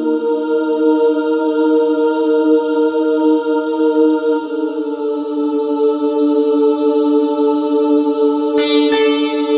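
Ambient electronic music: slow, sustained synthesizer chords that shift twice, with a bright struck note coming in near the end.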